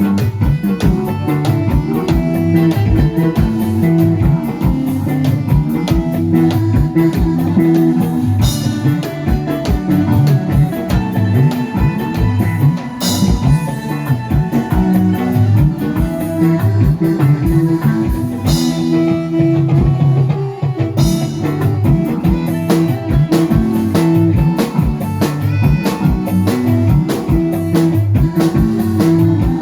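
Instrumental music with guitar and a drum kit keeping a steady beat, heavy in the bass, played through a PA sound system.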